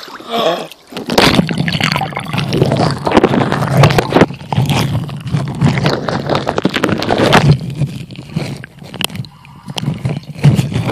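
Pool water heard underwater through a phone's microphone sealed in a ziploc bag: muffled gurgling and sloshing with frequent crackles, starting about a second in.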